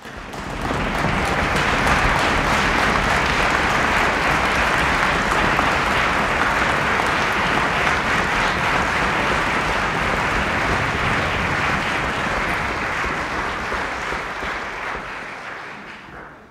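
Concert audience applauding in a steady wash of clapping that builds within the first second and dies away near the end, welcoming a soloist onto the stage.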